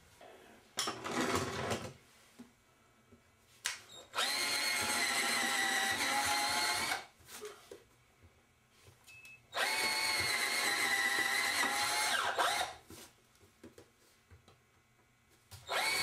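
Cordless drill with a 3/16-inch bit drilling pilot holes into the floor: a steady high motor whine in two runs of about three seconds each, winding down after each, with a third run starting near the end. Light handling noises in the pauses.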